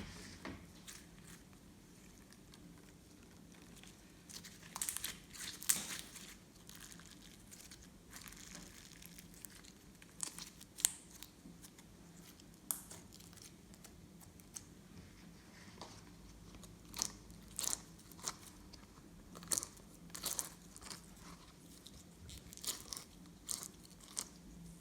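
Glossy slime being worked by hand, giving irregular sticky clicks and crackling pops.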